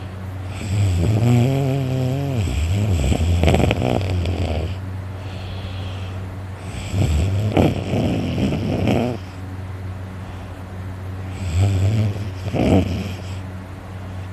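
A person snoring heavily in sleep: three loud, rattling snores about five seconds apart, over a steady low hum.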